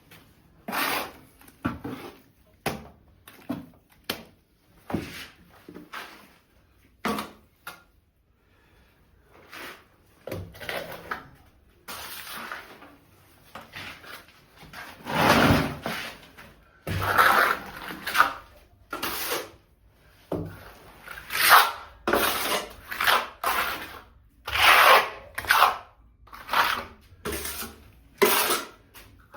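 A plastering trowel scraping and spreading wet plaster on a wall in a run of short, irregular strokes, roughly one a second, with a pause about eight seconds in.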